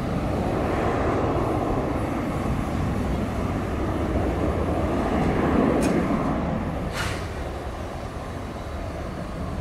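Distant Bombardier Global 6000 business jet on its takeoff roll, its two Rolls-Royce BR710 turbofans at takeoff thrust making a steady rumble. The rumble swells about five seconds in and eases off after about seven seconds.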